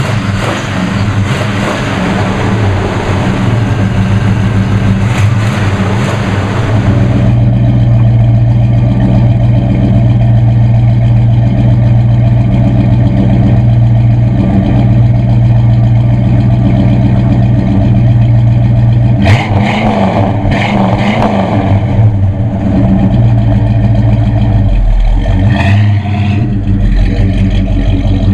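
Oldsmobile 455 V8 running just after being started, heard from under the hood with a dense mechanical hiss and clatter. From about seven seconds in it settles to a steady, low, even exhaust note at idle. Near the end the car drives off.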